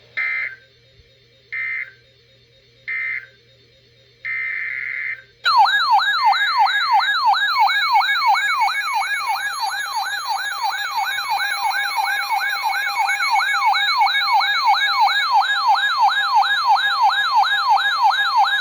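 Emergency Alert System data tones: three short chirping bursts of digital code, then a longer burst. About five seconds in, a loud electronic siren-like alert tone starts, warbling rapidly up and down about two and a half times a second.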